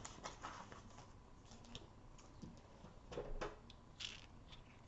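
Faint scattered taps and rustles of paper card stock being handled, with a slightly louder cluster about three seconds in.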